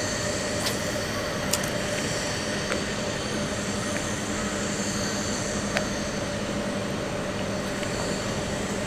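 Boat engine idling: a steady, even drone with a few faint clicks over it.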